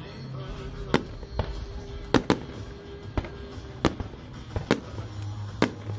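Aerial fireworks shells bursting overhead: sharp bangs at irregular intervals, about eight in six seconds, two of them nearly together a little past two seconds in.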